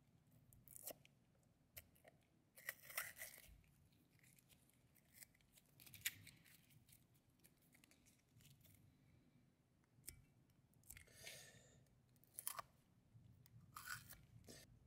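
Masking being peeled and picked off the piston bores of a freshly painted Brembo brake caliper: faint, short tearing and scraping sounds with scattered small clicks.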